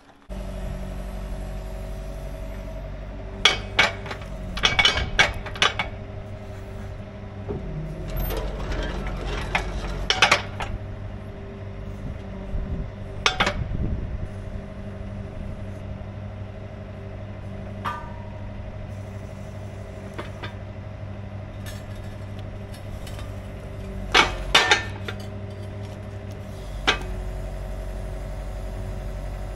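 Excavator engine running steadily while its quick coupler is worked onto a ripper's freshly welded pipe mount, with several sharp metal clanks of steel on steel, the loudest a pair about three-quarters of the way through.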